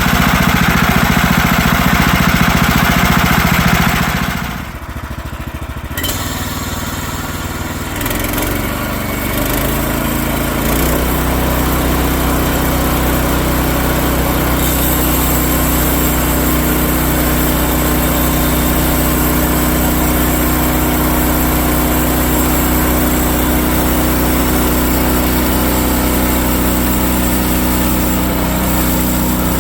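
An engine running hard for about four seconds, then dropping off sharply. From about ten seconds a steady engine idle runs evenly.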